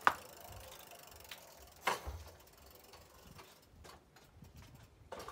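A few sharp mechanical clicks and knocks: a loud one at the very start, another about two seconds in, and a fainter one near the end, with low rattling between them.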